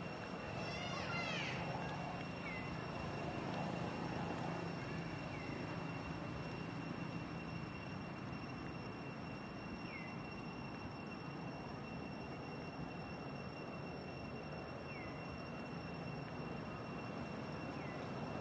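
Steady outdoor background noise with a low hum and a constant high-pitched tone. A quick flurry of short falling chirps comes about a second in, and single chirps follow now and then.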